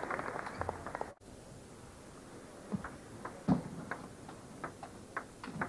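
Table tennis rally: the ball clicking sharply on paddles and table in an uneven run of ticks, about two a second, the loudest a little past the middle. The sound cuts out for a moment about a second in.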